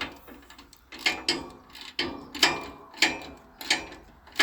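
Hand ratchet wrench clicking in short, uneven back-strokes, about two clicks a second, as a tight fastener is worked loose.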